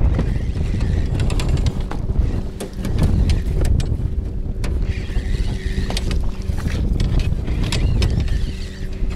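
Wind rumbling on the microphone aboard a small fishing boat, with scattered clicks and knocks and a faint steady hum underneath.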